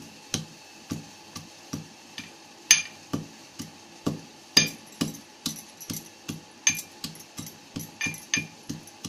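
A piece of fresh ginger being crushed by hand with steady pounding strikes, about two to three a second. Each strike has a short, clinking ring.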